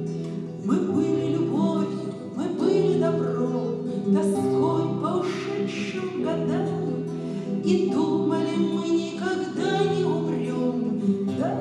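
A woman singing a Russian singer-songwriter (bard) song to her own nylon-string classical guitar accompaniment.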